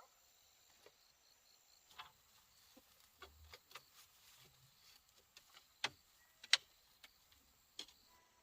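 Irregular light clicks and knocks, a dozen or so at uneven spacing, the loudest two close together about six seconds in.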